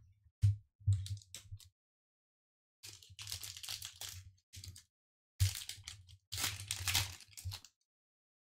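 A foil Pokémon trading-card booster pack being torn open and crinkled by hand, after a few short taps as it is picked up. The crinkling comes in two stretches, the second about halfway through.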